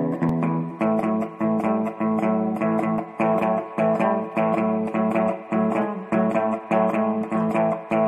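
Instrumental intro music led by plucked guitar, with a steady rhythm of repeated notes.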